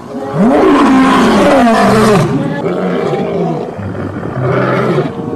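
Lion roaring: a loud, long roar with rising and falling pitch in the first two seconds or so, followed by quieter, lower roaring grunts.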